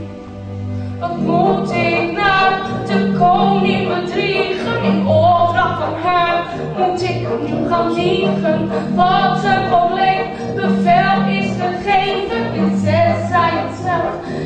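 A young performer singing a solo song over instrumental accompaniment with sustained bass notes. The voice comes in about a second in, after a short instrumental lead-in.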